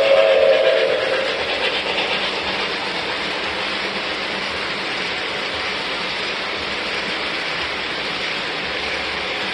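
MTH model train in Chessie System livery rolling past, a steady running noise of its wheels on the track as the passenger cars go by. The tail of the locomotive's sound-system steam whistle dies away in the first second.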